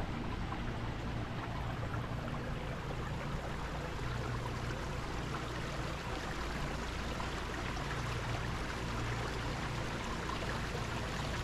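Wind rushing steadily through the trees' dry autumn leaves, with a low rumble of wind buffeting the microphone.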